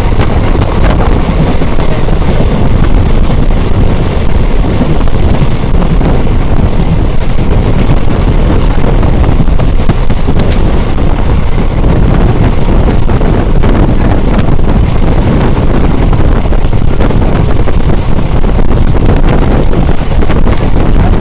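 Loud, steady wind rushing over the microphone from a moving train, with the train's running rumble underneath.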